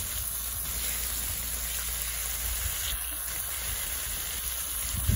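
Bacon sizzling in an electric skillet, a steady hiss.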